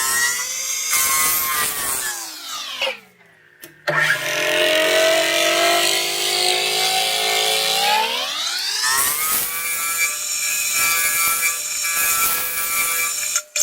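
A power tool's motor running, its pitch sliding down and back up and then holding steady. It cuts out for about a second around three seconds in, and again briefly near the end.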